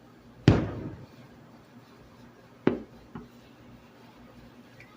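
Fireworks bursting: a loud bang about half a second in that dies away over about half a second, then two smaller bangs close together near three seconds in.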